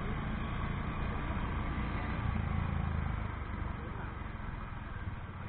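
Honda H'ness CB350's single-cylinder engine running steadily as the motorcycle rides along, easing off slightly a little past halfway.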